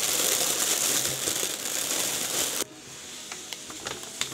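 Plastic air-pillow packing crinkling loudly as hands rummage through it in a cardboard box. It cuts off abruptly about two-thirds of the way in, and softer rustles and taps follow.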